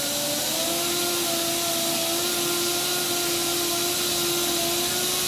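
A machine's motor running steadily: a whine over a broad hiss, its pitch edging up slightly in the first second and then holding even.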